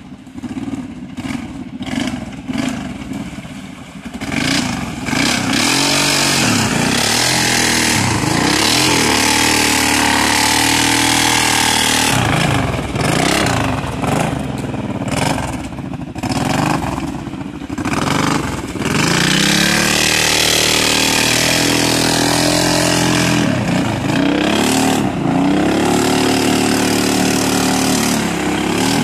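ATV engine revving up and down again and again as the quad drives through mud and standing water, with a steady hiss of spray and splashing from the tyres.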